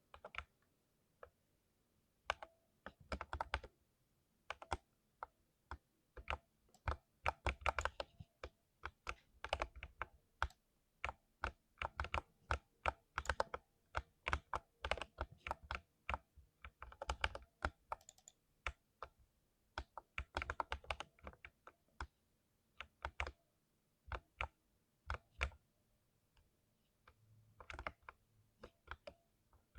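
Typing on a mechanical keyboard with lubed switches: irregular runs of keystrokes with short pauses between them, each stroke a sharp click with a deep low thud.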